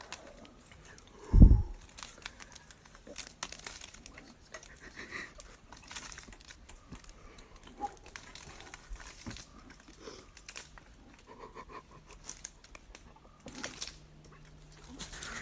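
Scattered scratching, rustling and clicking close to the microphone as a black bear climbs, its claws on tree bark, with one loud low thump about a second and a half in.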